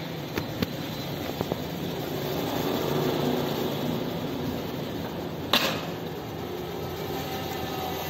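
Metal lift mechanism of a folding lift-top table worked by hand: a few light clicks, then one sharp clack about five and a half seconds in, over a steady background noise.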